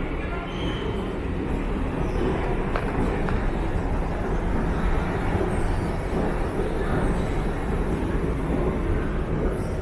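Steady, loud low rumble of moving vehicles, with no clear start or stop.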